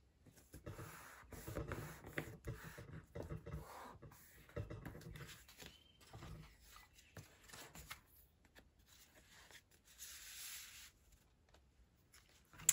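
Hands handling paper and cardstock: soft taps and rubbing as a stamped panel is pressed onto a card mat, then paper sliding and rustling, with a longer rustle about ten seconds in.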